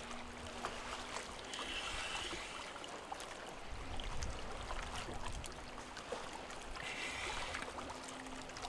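Water lapping and sloshing gently against a boat's stern, with small splashes from a snorkeler swimming at the surface. A faint low hum comes and goes.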